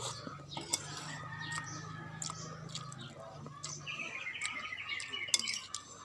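Birds chirping in the background, with a quick run of chirps about two thirds of the way in, over scattered clicks and eating noises.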